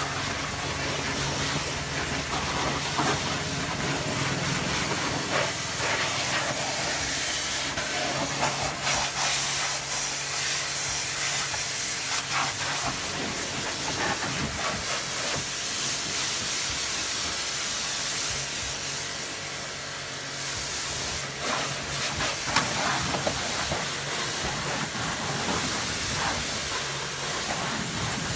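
High-pressure washer jet spraying water over a motorbike: a steady, loud hiss of spray with a low hum underneath, dipping briefly about two-thirds of the way through.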